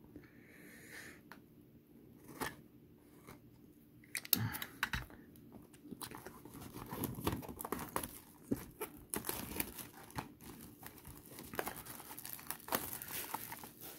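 Plastic wrapping being torn and crinkled off a trading-card booster box: a few scattered handling clicks at first, then steady crackling and crinkling from about four seconds in.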